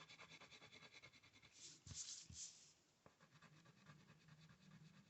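Faint scratching of gray colouring strokes on paper: quick, even back-and-forth scribbles, with a few harder strokes about two seconds in, then lighter ones.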